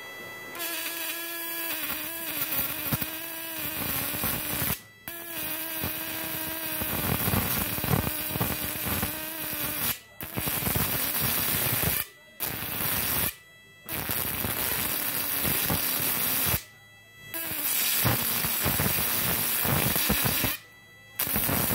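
High-voltage electric arc drawn between the two output wires of a homemade 1000-watt fish-shocking inverter: a loud buzzing crackle with a humming tone beneath it. It cuts out and restarts about six times as the wires part and touch again.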